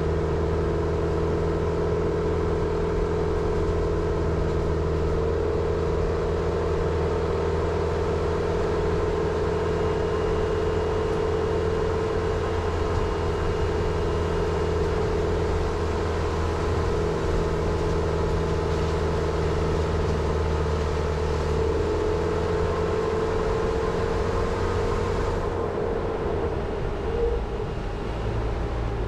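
Jeep Renegade driving slowly with its engine running at a steady low speed. A constant engine hum sits under tyre and road noise.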